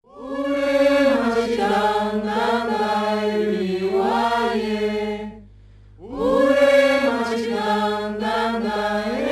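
Background music: wordless voices chanting long sustained notes in two phrases, with a short break about halfway through.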